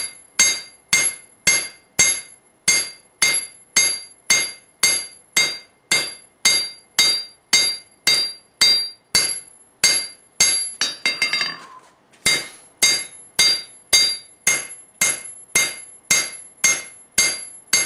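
Blacksmith's hand hammer striking a red-hot steel blade on a Peter Wright anvil to draw it out wider: steady blows about two a second, each with a bright metallic ring. There is a brief break with a lighter clatter a little past the middle, then the hammering resumes.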